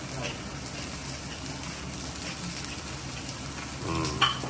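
Wagyu steak sizzling steadily on a teppanyaki griddle over a low steady hum, with a short sharp clack near the end.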